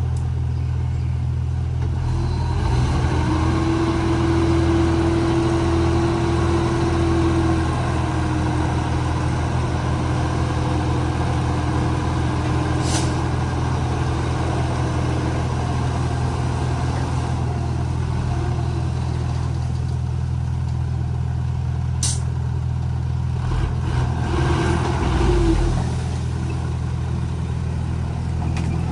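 Komatsu D31P bulldozer's diesel engine running steadily while working. A higher whine rises over it about three seconds in and fades away, then comes back briefly near the end, and there are two sharp clicks.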